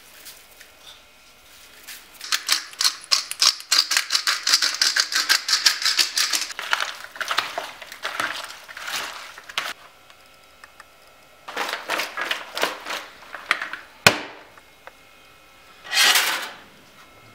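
Bare hands mixing salted fish pieces and sliced onion in a plastic bowl: a fast run of crackling clicks starting about two seconds in and again briefly after the middle. A single sharp knock comes a little before the end, then a short scrape near the end.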